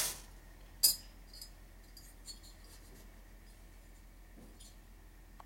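A single sharp metallic clink about a second in, then a few faint light taps, as a piston ring is handled and set into a Harley Evolution cylinder bore to check its end gap. A low steady hum runs underneath.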